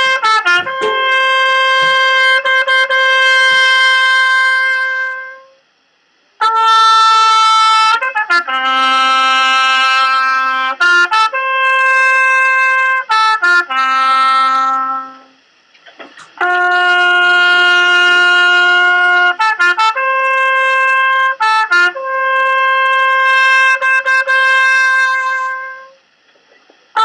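A small coiled brass horn being blown in three long phrases, each mixing held notes at a few different pitches with short choppy repeated notes, with brief pauses for breath between phrases.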